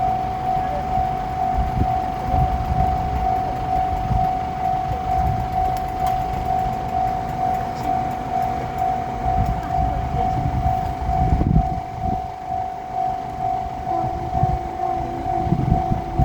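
Japanese railroad crossing alarm bell ringing steadily in its fast, even repeat, over the low rumble of a JR Shikoku 1500-series diesel railcar at the crossing, the rumble swelling in the second half.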